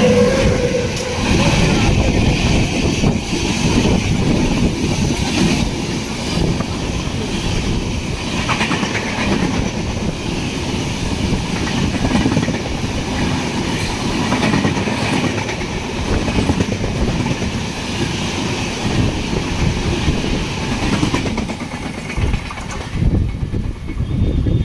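Express train of red LHB coaches behind a WAP-7 electric locomotive passing at speed on the adjacent track, very close: a continuous rumble and clickety-clack of wheels over the rail joints. The tail of a horn note dies away right at the start, and the noise falls off near the end as the last coach goes by.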